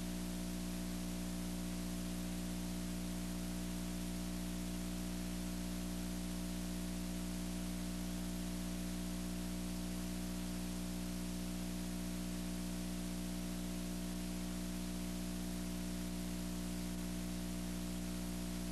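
Steady hiss with a low electrical hum made of several steady tones beneath it: the noise floor of a blank stretch of an old 1980s recording, with nothing else happening.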